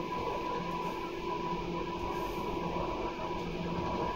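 JR Kyushu 811 series electric train running at a steady speed, its external-fan traction motors giving an even hum with steady tones over the rumble of the wheels on the track.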